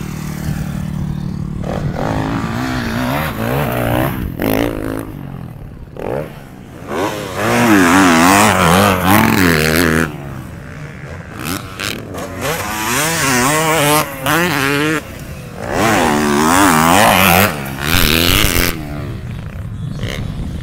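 Motocross dirt bikes revving, the engine pitch wavering up and down as the throttle is worked, with several loud stretches as bikes come close.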